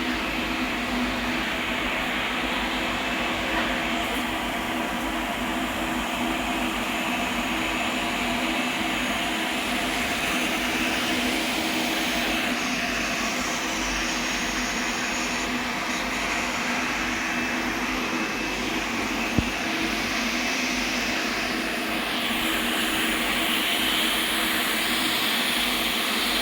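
Steady drone of industrial machinery with a constant low hum and hiss, the hiss growing brighter for a few seconds at a time. A single sharp click about 19 seconds in.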